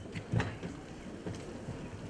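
A pause in a speech: faint background hiss, with a few soft ticks, one about half a second in.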